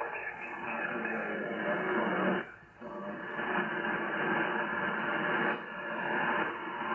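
Shortwave receiver audio on the 40-metre amateur band: a noisy single-sideband signal, cut off above about 3 kHz, with no clear words. It drops out briefly about two and a half seconds in and again past five seconds.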